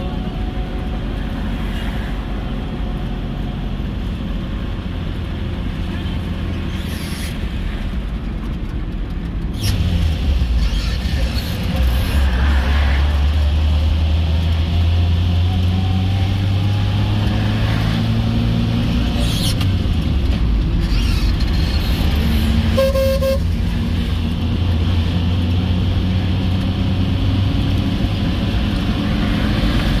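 Car engine and road noise heard from inside the cabin while driving, a steady low rumble that grows louder about a third of the way in. A short car horn toot sounds about two-thirds of the way through.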